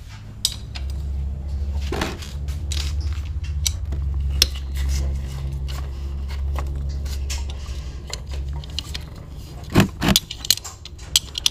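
A ring spanner clinks and clicks on the engine oil drain bolt of a Yamaha LC135 as the bolt is worked loose, with the sharpest metallic clicks near the end. A low steady hum runs underneath for the first several seconds.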